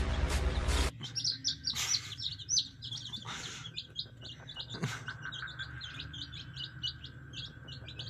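Background music for about the first second, cut off abruptly; then a brood of Aseel chicks peeping, many short high-pitched peeps several a second, with a few short noises in between.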